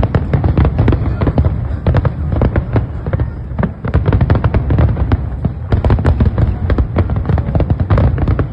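A fireworks display going off in a rapid, continuous barrage: many bangs and crackles a second over a constant low rumble.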